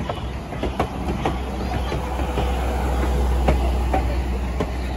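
Wooden passenger coaches of a steam-hauled train rolling past close by: steel wheels clicking irregularly over rail joints above a steady low rumble.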